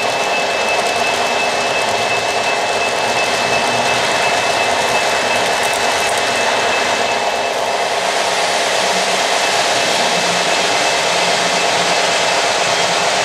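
O-gauge model trains running on three-rail track: a steady whir of electric motors and metal wheels rolling on the rails, with a thin high whine held throughout.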